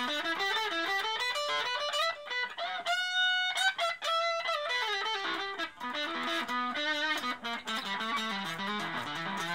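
Electric guitar playing single-note melodic lines through the Raizin Sound effect unit's "60s Vintage Tweed" sound, a vintage tweed-amp tone. One high note is held briefly about three seconds in.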